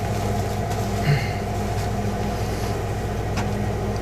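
A steady low machine hum, like an engine or motor running, sets in suddenly. About three and a half seconds in there is one sharp click, a scissors snip through the fiberglass cloth.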